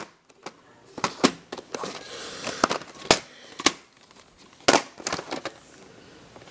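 Hands handling a plastic VHS tape case close to the microphone: a run of sharp clicks and knocks with rustling in between.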